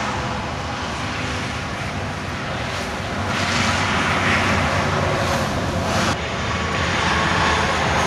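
Engine of heavy construction equipment running steadily, with a rushing noise that grows louder about three seconds in and changes abruptly about six seconds in.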